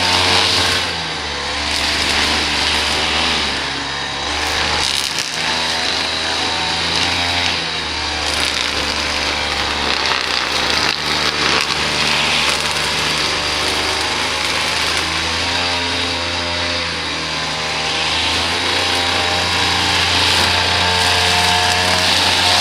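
Small petrol engine of lawn-care equipment running steadily under load, its pitch wavering a little, with a hissing cutting noise over it.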